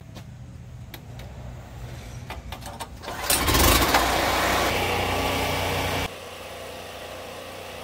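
A few clicks and knocks, then a Predator 4000 portable generator starts about three seconds in and runs steadily. Near the end the sound drops abruptly to a quieter steady hum.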